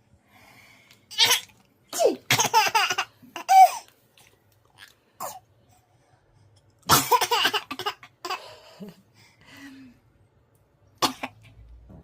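A few sharp sneezes, the loudest about seven seconds in, with a young child's laughter bursting out between them.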